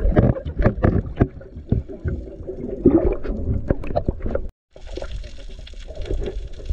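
Water gurgling and sloshing around a camera dipped at and below the surface beside a small wooden boat, with many sharp knocks against the hull and net over a low rumble. About four and a half seconds in the sound cuts out briefly, then returns as a steadier underwater hiss.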